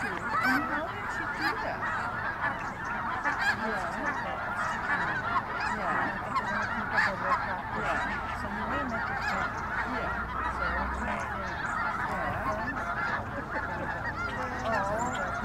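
A large flock of snow geese and Ross's geese calling without a break, many overlapping honks at once.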